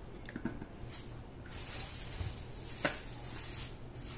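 Spoon stirring thick flour-and-milk hotcake batter in an aluminium pot: soft scraping and squishing, with one sharp click a little under three seconds in.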